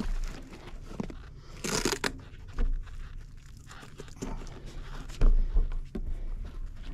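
Mountain bike rolling over a rough dirt trail: tyres crunching on gravel and the bike clattering over bumps, with a louder scraping rush about two seconds in and low wind rumble on the microphone.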